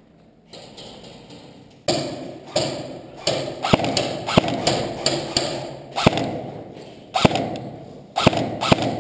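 Airsoft guns firing single shots, about a dozen sharp cracks at uneven intervals starting about two seconds in, each echoing off bare concrete walls.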